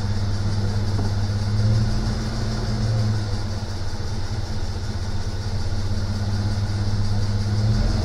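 Nissan GQ Patrol's petrol engine idling steadily, running on petrol, heard from inside the cabin as a continuous low hum.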